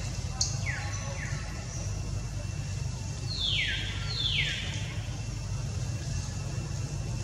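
A series of short animal calls, each sweeping downward in pitch: three faint ones in the first second or so, then two louder, rasping ones about three and a half and four and a half seconds in. A steady low hum runs underneath.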